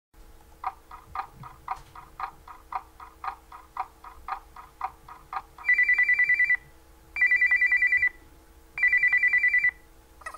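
A run of short pulsed beeps, about two a second, followed by three short bursts of a trilling telephone-style ring, each about a second long.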